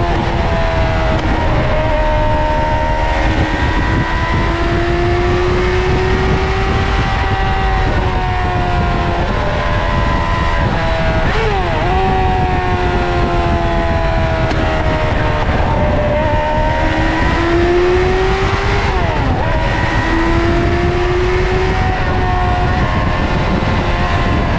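Suzuki GSX-R 600 SRAD inline-four engine and exhaust under way, its pitch climbing slowly with throttle over several seconds. It drops and recovers quickly about half a second in, around the middle, and again about three quarters of the way through, as at gear changes. A steady low rushing noise runs beneath the engine.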